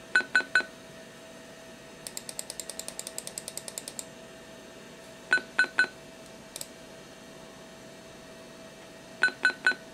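Macintosh SE/30 speaker playing a program's triple electronic beep three times, each group of three quick beeps four to five seconds after the last, under a faint steady hum. Between the first two groups comes a quick run of about fifteen sharp ticks while the text scrolls, then a single short blip.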